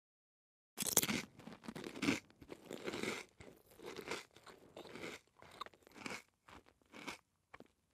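Potato chips being crunched and chewed: a run of crisp crunches starting about a second in, thinning out into a few sparse crunches near the end.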